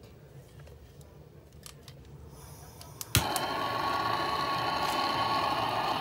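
Hand-held gas torch lit with a sharp click about three seconds in, then a steady hissing flame as it starts to heat aluminium refrigerator tubing for soldering over a leak.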